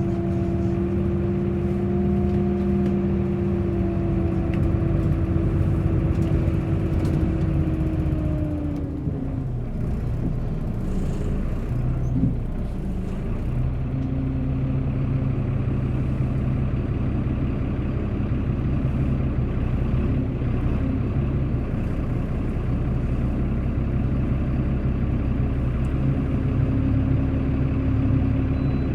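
Bus engine running, its hum dropping in pitch over the first nine seconds as the bus slows, then holding at a steady lower tone for the rest.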